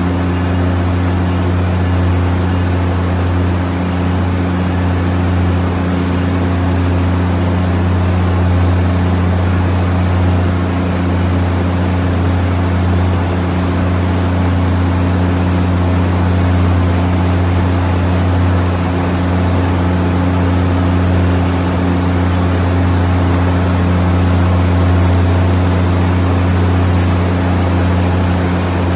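Amtrak passenger coaches rolling slowly past along the platform, a steady low hum over an even rumble of wheels on rail.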